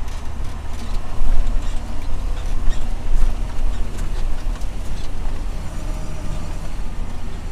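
Inside the cab of a John Deere 6920 tractor: its six-cylinder diesel engine runs steadily under load, pulling a seed drill across the field, with a low rumble and a few light knocks and rattles.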